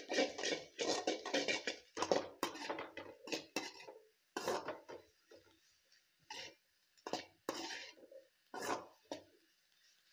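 A slotted metal spatula scraping and clinking against a large metal kadai as stir-fried noodle vegetables and chicken are tossed, in quick irregular strokes for the first few seconds, then sparser strokes with short pauses.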